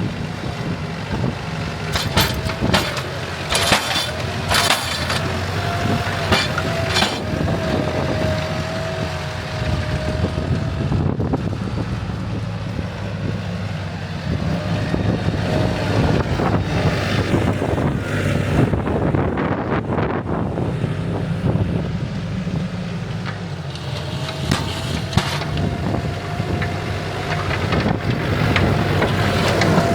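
A TYM 574 compact tractor's diesel engine running steadily, with a wavering whine that fades and returns and a few sharp knocks in the first few seconds.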